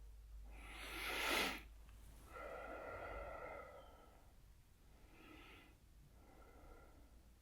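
A sleeping man snoring: a noisy inhale that grows louder and stops sharply about a second and a half in, then a long breathy exhale, and two fainter breaths near the end.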